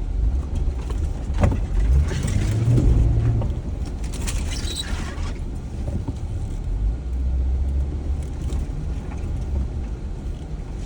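Jeep crawling over a rutted, muddy trail: the engine runs low and steady under a knock about a second and a half in, then a few seconds of rattling and creaking from the body and suspension.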